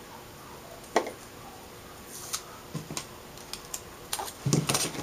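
A small piece of aluminum foil crinkling and crackling as fingers handle and fit it, with a sharp click about a second in, scattered short clicks in the middle and a loud cluster of crackles near the end.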